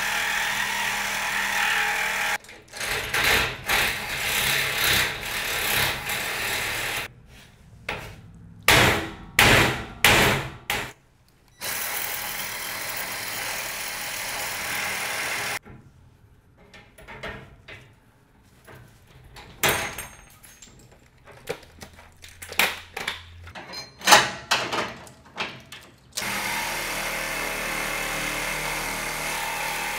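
Compact cordless reciprocating saw cutting a steel trailer coupler lock, running in steady spells of a few seconds with stretches of stop-start strokes and pauses between them.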